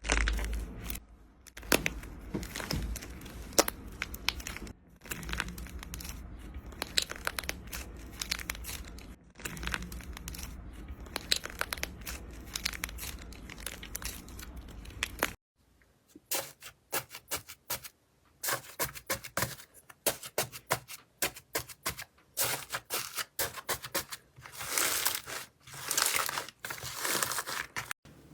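Slime being squeezed and worked by hand, giving dense crackling and crinkling sounds over a low hum. About fifteen seconds in it cuts to a second clip of separate, sharper crunching bursts.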